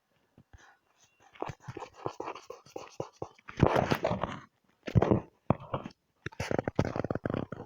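Drawing tool scratching across paper in several spells of quick back-and-forth strokes, as in scribbling or colouring in.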